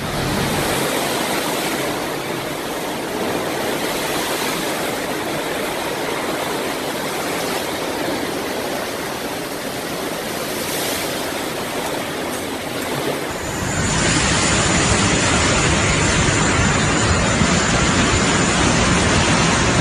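Steady storm noise of hurricane wind and moving floodwater, a continuous rushing hiss. About 14 seconds in it switches abruptly to a louder, lower wind rumble on the microphone with a faint steady high tone.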